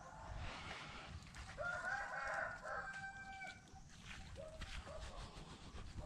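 A rooster crowing once, a held call lasting about two seconds, followed a little later by two short clucks.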